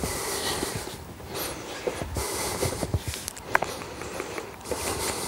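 Footsteps with scattered light knocks and rustling as a person walks along shelving.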